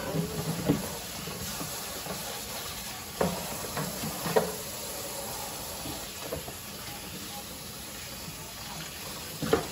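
Kitchen tap running into a stainless-steel sink as a plastic food container is rinsed and scrubbed with a sponge, with a few short knocks of the plastic against the sink, the loudest about three seconds in, about four and a half seconds in and near the end.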